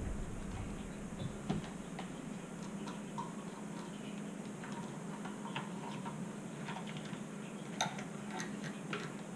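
Scattered light clicks and taps as a DeWalt FlexVolt battery pack, its terminal adapter and meter test probes are handled, the sharpest near the end, over a faint steady low hum.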